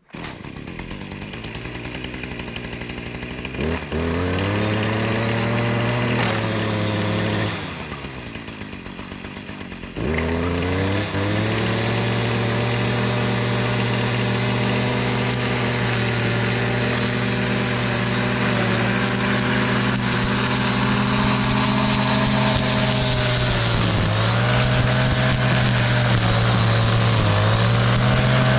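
Stihl MM56CE multi tool's small two-stroke engine driving a string trimmer head. It starts up at a low speed and revs to a steady high speed a few seconds in. It drops back to idle, then revs up again about ten seconds in and holds there, with brief dips near the end.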